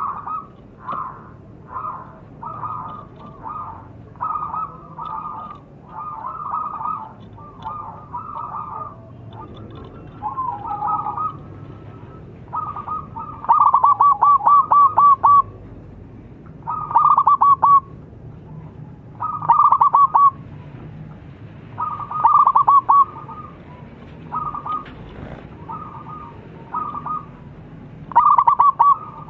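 Zebra dove (perkutut) cooing in full song: a run of short phrases of rapid staccato coos, repeated every second or two, the phrases louder from about halfway through.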